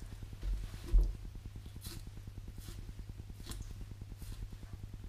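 Paper towels being pressed and rubbed onto a wet, cured beef brisket on a sink drainer, drying it. Faint rustles and dabs, with a low thump about a second in, over a steady low hum.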